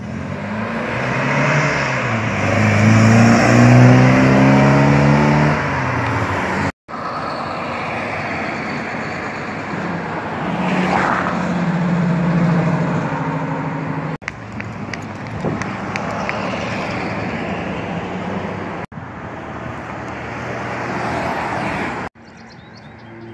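Cars driving past at street intersections in several short cuts. First an engine pulls away, its pitch rising through the gears. Then the V8 of a yellow Chevrolet Camaro Z28 accelerates through a turn, and a Mercedes-Benz 380 SL roadster drives off amid traffic noise.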